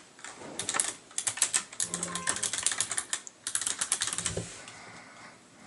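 Typing on a Razer Ornata Chroma keyboard: fast runs of clicky keystrokes from its membrane keys with an added click, similar to Razer green clicky switches. The typing starts about half a second in, pauses briefly twice and stops a little after four seconds.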